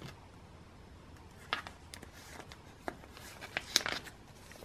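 Photocards and plastic binder sleeves being handled: a few light, scattered clicks and rustles, with a small cluster of them a little after halfway.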